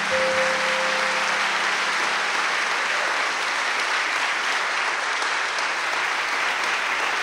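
Concert audience applauding steadily at the end of a song, a brief held tone dying away in the first second or so.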